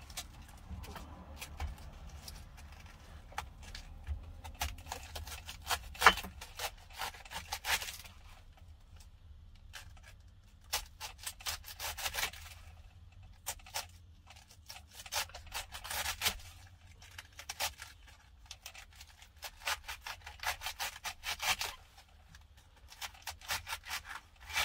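Kitchen knife cutting through a head of cabbage on a wooden cutting board: runs of quick crisp cuts, with the blade scraping on the board, broken by short pauses.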